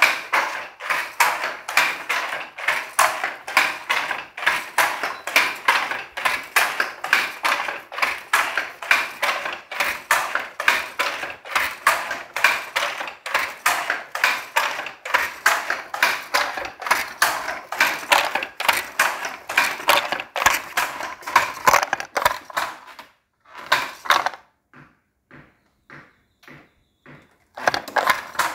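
Wooden handloom being worked: rapid wooden clacking, several clacks a second, that drops to a few faint clicks about 23 seconds in and comes back near the end.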